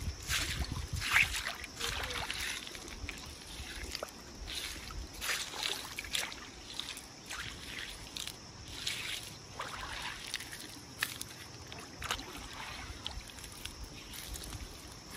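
River water sloshing and splashing in irregular bursts, with a few small sharp knocks.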